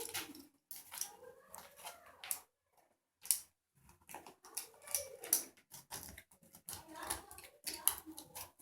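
Irregular clicks, taps and scrapes of small plastic and metal parts handled up close, as a grounded wall socket is worked on by hand.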